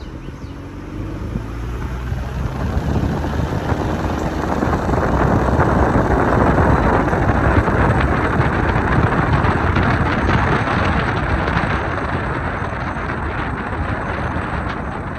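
Car driving along a road: engine, tyre and wind noise build as it picks up speed over the first several seconds, then ease off a little near the end.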